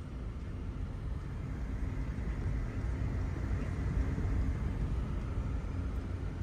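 Engine and road noise of a Volkswagen car heard from inside the cabin while it is driven, growing louder with a slightly rising engine note to about four seconds in, then easing a little.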